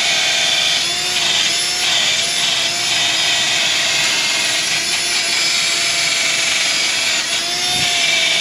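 Milwaukee cordless die grinder with an abrasive disc running steadily: a motor whine over the hiss of the disc scouring rust and scale out of the hub bearing bore of a steering knuckle. The whine wavers slightly in pitch as the disc bites into the metal.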